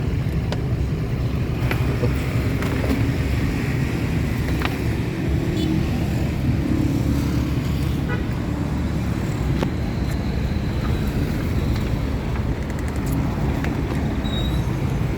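Isuzu Panther's 2.5-litre direct-injection diesel engine idling steadily, a low, even rumble.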